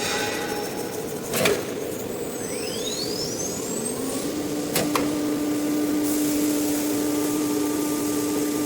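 CNC nesting router working: a whine climbs steeply in pitch as the spindle spins up, with a knock just before it and a sharp click just after, then a steady hum comes in.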